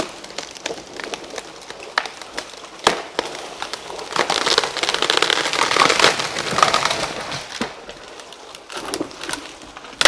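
A chainsaw-felled tree cracking and snapping at the hinge as it tips, then crashing down through the neighbouring branches onto the leaf litter with a few seconds of dense crackling of breaking twigs, the loudest part, about four seconds in. More sharp snaps near the end as another cut tree starts to go over.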